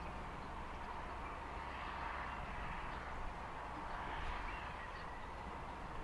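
Steady wind noise on the microphone: a low rumble under an even hiss.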